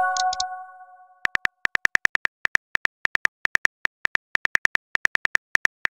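Texting-app message chime, a few clear tones fading out over about a second and a half, followed by keyboard typing clicks, quick taps in short runs, as a reply is typed.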